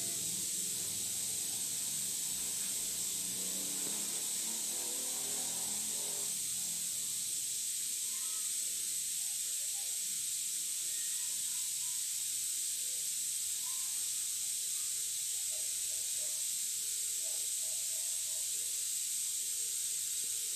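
A steady high-pitched hiss, with faint muffled sounds underneath that are a little stronger in the first six seconds.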